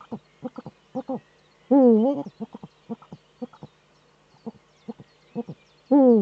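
Male Eurasian eagle owl giving courtship calls at the nest site: a loose series of short clucking notes, several a second. Two louder, drawn-out calls dip and then rise in pitch, one about two seconds in and one near the end.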